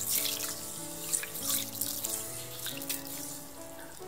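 Water splashing and dripping as a hand stirs and scoops mung beans in a bowl of water, letting them fall back in irregular splashes.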